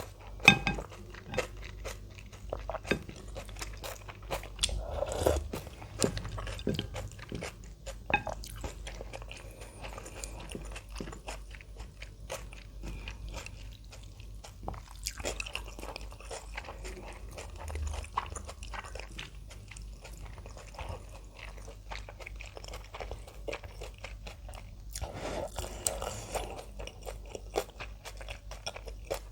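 Close-up eating sounds: crisp crunching and chewing of kimchi, a steady run of small wet clicks broken by a few louder bites, about five across the stretch.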